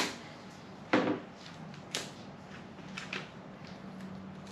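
A hard plastic body panel being handled and shifted: one loud knock about a second in, then a lighter click and a few small taps, over a steady low hum.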